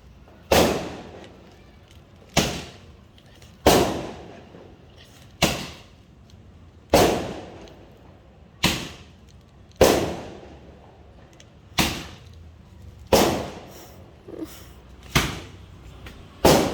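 Firecrackers going off one after another, about a dozen sharp bangs spaced roughly a second and a half apart, each trailing off in an echo.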